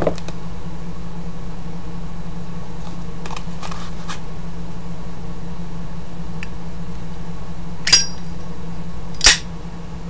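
Steady low hum with faint handling of a lighter. Near the end come two sharp metallic clicks about a second and a half apart: a Zippo lid flipping open with a brief ring, then snapping shut.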